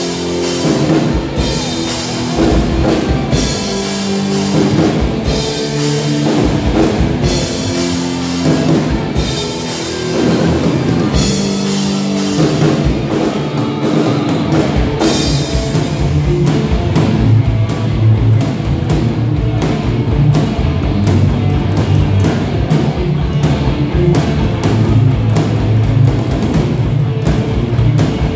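Live rock band playing: electric guitars and a drum kit. Through the first half, long chords are struck every second or two with cymbal crashes. From about halfway, the guitars play a continuous low riff over steady drumming.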